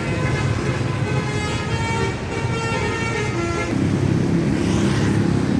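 Bus 'telolet' multi-tone horn playing a short tune of stepped notes over the bus's running engine; the horn stops about three and a half seconds in and the engine grows louder.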